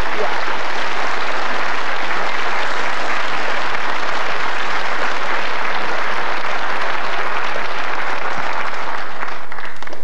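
Studio audience applauding steadily, the clapping dying away near the end.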